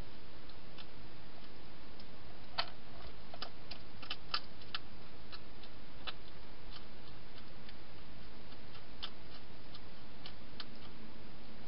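Wild hedgehog eating at the bowls inside a plastic feeding box: sharp, irregular clicks of chewing, thickest a few seconds in and sparser after, over a steady hiss.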